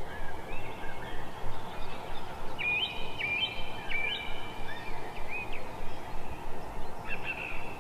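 Birds chirping, short repeated calls over a steady background noise, with a quick run of calls about three seconds in.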